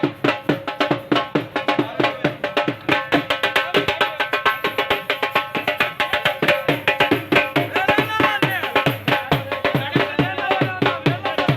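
Music with fast, steady drumming and a melody.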